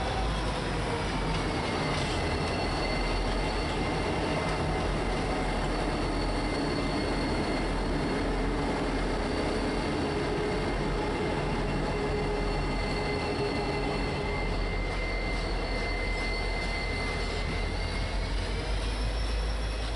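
Norfolk Southern SD40E helper locomotives passing as a light-engine consist, their diesel engines running with a steady rumble. Over it a high-pitched squeal holds steady, dropping in pitch about a second or two in and rising again near the end.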